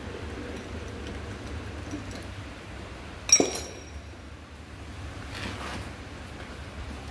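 Four-jaw lathe chuck being loosened with its steel T-handle chuck key: one sharp metallic clink with a short ring about three seconds in, over a low steady hum.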